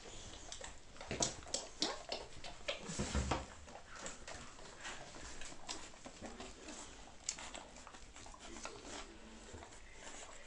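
Eighteen-day-old boxer puppies nursing and squirming against their mother: small whimpers and squeaks mixed with shuffling and rustling on the towel. A few louder knocks and a low thud come between about one and three and a half seconds in.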